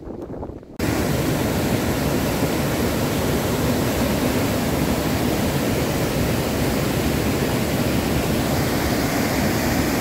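Rushing water pouring over a waterfall's rocky lip: a loud, steady roar that comes in suddenly about a second in.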